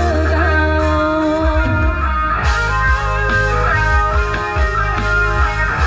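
Loud music played through a rot hae sound truck's WARTECH speaker stacks: an instrumental passage with a plucked-string lead over heavy bass. The bass holds steady for about a second, then pulses in a beat.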